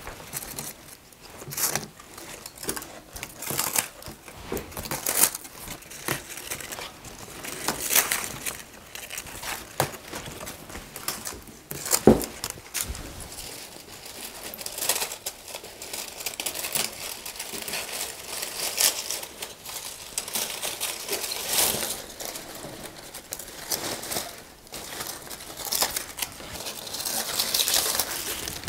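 Dry dead leaves and papery stem sheaths of a Syngonium crinkling and snapping as they are pulled off by hand, with the foliage rustling. Irregular crackles throughout, with one sharper snap about twelve seconds in.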